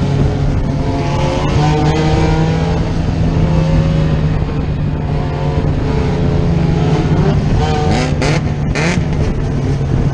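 Dirt-track race car's engine heard from inside the cockpit, running steadily with other cars' engines around it. Near the end the pitch rises and a few short rushes of noise cut through.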